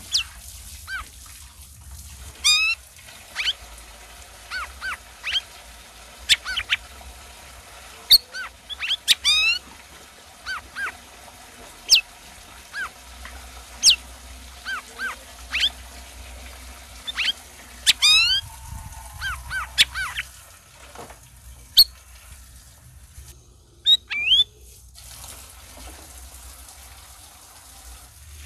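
Cucak rawis songbird singing: sharp whistled notes and quick runs of falling chirps, with short pauses between phrases, over a faint low hum.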